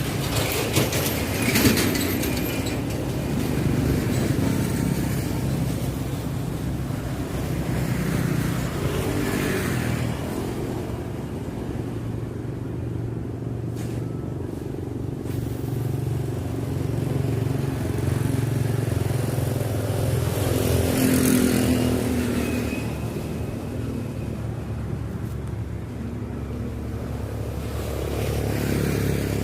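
A motor vehicle engine running steadily at an even pitch. A few louder rushing swells come and go, about a second in, around nine seconds, around twenty-one seconds and near the end.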